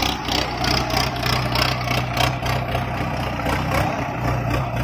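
Indo Farm 3055 tractors' diesel engines running steadily, with a regular pulsing of about four beats a second that fades out about halfway through.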